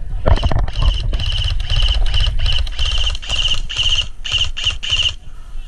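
Airsoft rifle firing in a string of rapid full-auto bursts, each a fast buzzing rattle of shots. About eight bursts, the last few short, stopping about five seconds in.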